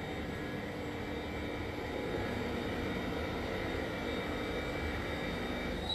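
Achilli GOLD CNC bridge saw running: a steady motor hum with a faint high whine over it.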